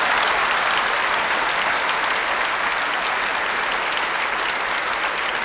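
Studio audience applauding: many hands clapping together in a steady, dense wash.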